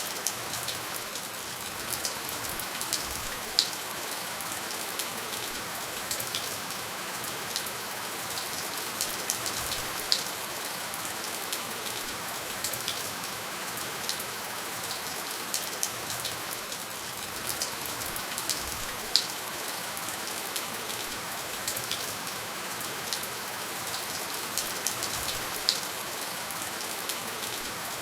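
Steady rainfall with no thunder: an even hiss with many distinct drops clicking and pattering on a surface, a few of them louder.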